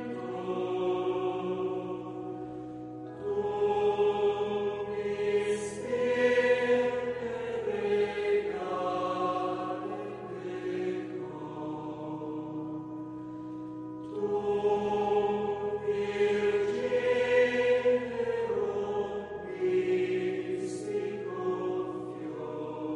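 A choir singing a slow piece in long held chords that change every few seconds.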